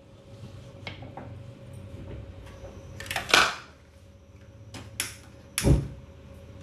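Aluminium pressure cooker lid being closed and its handles locked: light clicks, then a few loud metal knocks and clanks, the loudest about halfway and near the end.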